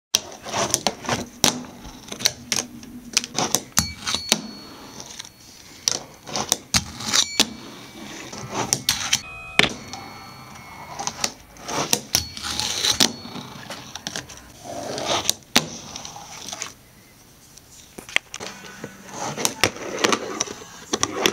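Fingerboard (finger skateboard) tricks on a granite countertop: irregular sharp clacks as the little board pops and lands, with stretches of the small wheels rolling on the stone between them.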